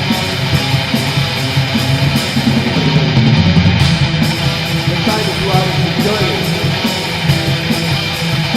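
Black metal music: a loud wall of distorted electric guitars playing without vocals.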